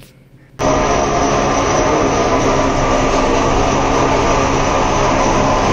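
Fishing trawler's diesel engine running steadily, cutting in abruptly about half a second in.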